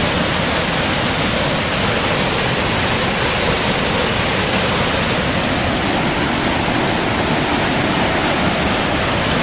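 Roar of the Spokane Falls: a large river waterfall crashing down, heard up close as a loud, steady rushing roar.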